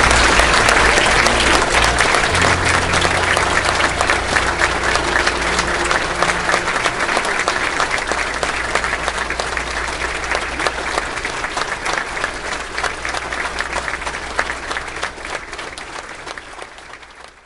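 A large audience clapping and applauding, which fades out near the end.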